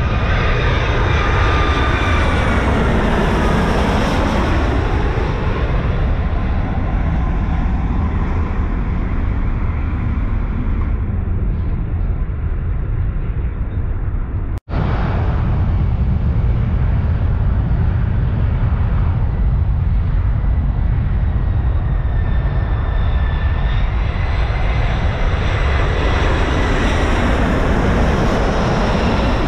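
Jet airliners on final approach passing low overhead. First a twin-engine jet runs with its engine whine falling in pitch as it goes by. After a sudden cut about halfway, a four-engined Lufthansa Airbus A340 with its gear down grows louder, its whine rising near the end, over a steady low rumble.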